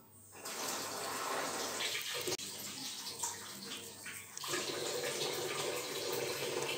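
Steady rushing noise, like running water, that changes in tone about four and a half seconds in.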